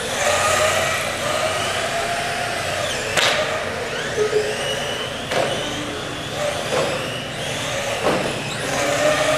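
Several small nitro engines of radio-controlled race cars running at speed, their high whine rising and falling in pitch as the cars accelerate and slow. A few sharp knocks come about three, five and eight seconds in.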